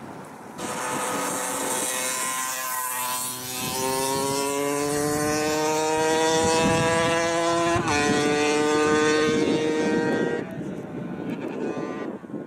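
A motor vehicle's engine accelerating, its pitch climbing steadily, then dropping at a gear change about eight seconds in and climbing again, over wind and road noise. The sound starts and stops abruptly.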